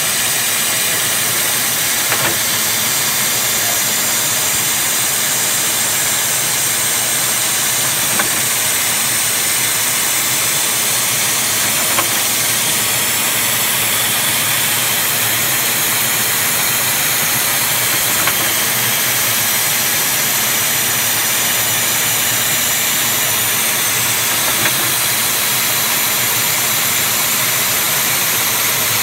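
Brown & Sharpe No. 2G automatic screw machine running steadily while machining a Teflon part: a constant mechanical hiss, with a light click about every six seconds.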